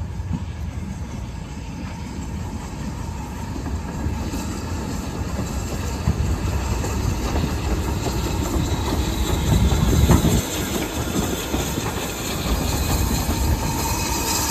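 BR Standard Class 2 2-6-0 steam locomotive 78019 and its carriages running into the station, a deep rumble with wheel clatter on the rails that grows louder as it draws level, loudest about two-thirds of the way in. A thin squeal comes in near the end as the train slows.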